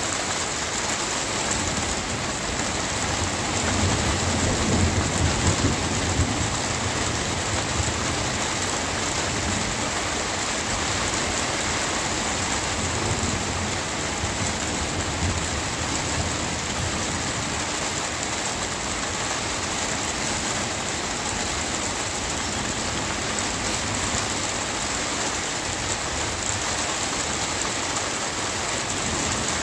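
Steady rain falling, with a low roll of thunder that swells about three seconds in and fades a few seconds later.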